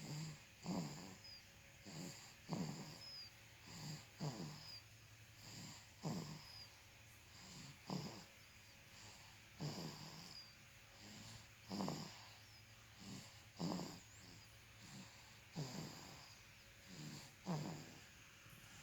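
A sleeping baby snoring: a rasping, rattly breath roughly every two seconds, about ten in a row.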